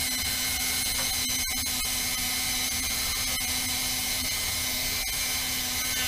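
Small Dremel-type rotary tool with a grinding stone running at a steady high speed, an even whine, as it grinds grooves into an aspen walking stick.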